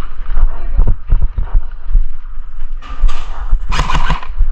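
Irregular low thumps and rustling from an airsoft player moving in heavy gear, with a brief louder noisy burst near the end.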